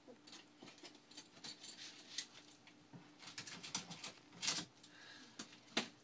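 Irregular small clicks and rustles close to the microphone, the loudest about four and a half seconds in and again just before the end, over a faint steady hum.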